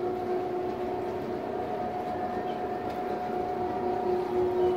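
Electric wharf hoist lowering a rental skiff on its chains: the motor runs with a steady two-note hum over a rumbling mechanical noise.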